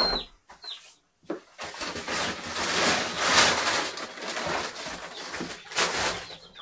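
A broiler chick peeps once right at the start. From about a second and a half in comes a long rustling, hissing noise of dry feed and sacks being handled, lasting about five seconds.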